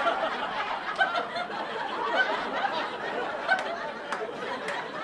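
Comedy-club audience laughing at a punchline, with a few sharp clicks among the laughter.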